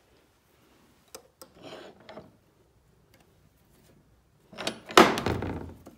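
A few light clicks of metal tooling being handled on an arbor press, then about five seconds in a loud sharp knock with a short noisy rush as the arbor press pushes a small round magnet flush into a 3D-printed plastic keeper.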